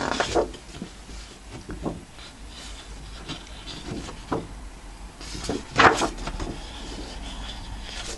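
Large sheets of patterned scrapbook paper being turned over by hand, rustling and scraping against the stack and the wooden tabletop. There is a sharp rustle at the start and the loudest rustle a little past halfway.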